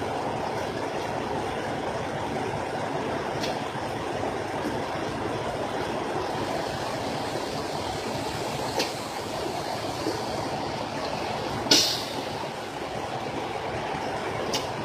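Steady rushing background noise, with a few short sharp slaps of hands and feet on concrete as a person does burpees, the loudest about twelve seconds in.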